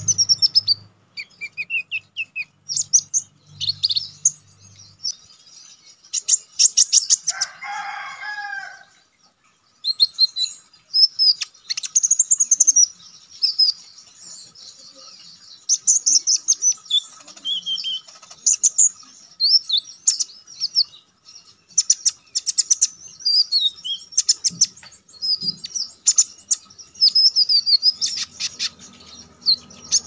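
Male crimson sunbird (konin) singing: a fast, high-pitched string of sharp, piercing notes, quick sweeping chirps and rattling trills, delivered in rapid bursts, with a brief lower warbled phrase about eight seconds in.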